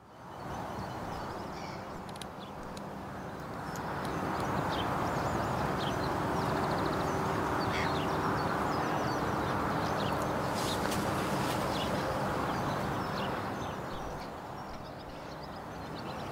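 Outdoor garden ambience: a steady rushing background that swells about four seconds in, with short bird chirps scattered throughout.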